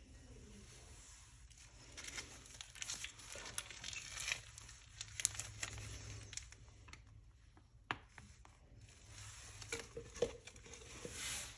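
Plastic crinkling and rustling as it is handled, in bursts, with a few sharp clicks and light knocks.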